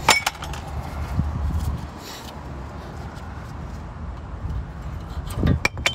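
Light metallic clicks and knocks as brake pads and the caliper bracket are handled, sharpest at the start and in a short cluster near the end, over a steady low rumble.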